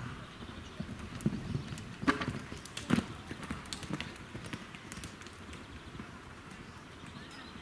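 Hoofbeats of a horse cantering on a sand arena, soft, irregular thuds, with a few louder hits in the first three seconds.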